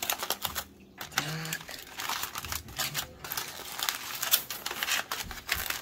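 Aluminium foil crinkling and crackling as a hand pulls open a crumpled foil wrap on a plate.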